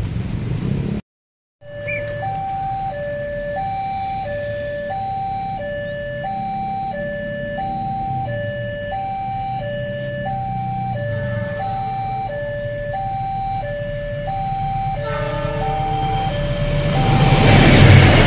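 Railway level-crossing warning alarm sounding an alternating two-tone electronic signal, about one and a half cycles a second. Near the end a passenger train hauled by a CC206 diesel-electric locomotive approaches and passes, its noise rising to become the loudest sound.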